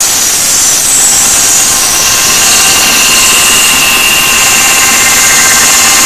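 A 12-volt car sound system with a large speaker array playing at extreme volume, recorded as a steady, heavily distorted wall of noise with a few high tones running through it.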